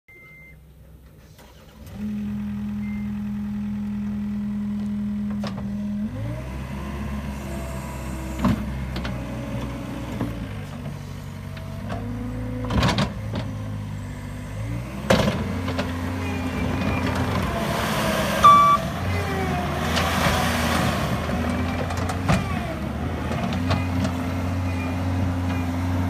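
John Deere 317G compact track loader's 65 hp turbo diesel engine running. It runs at a steady idle from about two seconds in, then its pitch and load shift as the machine drives on its rubber tracks and works the bucket, with several sharp clanks.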